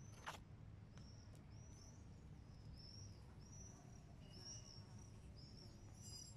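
Faint birdsong: a small bird repeating a short high chirp about twice a second, over a low steady rumble, with a few faint clicks in the first second and a half.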